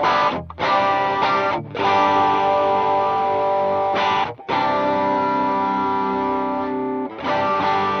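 Electric guitar played through a Demonfx Breaker Drive, a Marshall Bluesbreaker-clone overdrive pedal that is switched on, giving overdriven chords. The chords are struck one after another with brief gaps between them; one rings on for a couple of seconds before a new chord comes in near the end.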